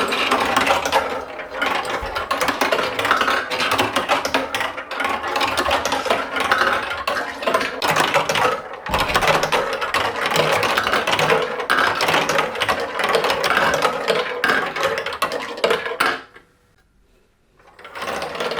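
Toy marble run in motion: marbles clattering and rattling along the plastic track with a steady mechanical run of clicks. It stops suddenly about sixteen seconds in, then starts up again shortly before the end.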